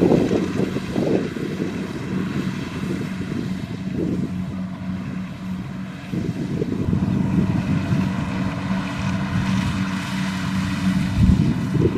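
Kubota DC-70 Plus rice combine harvester running with a steady engine drone as it works.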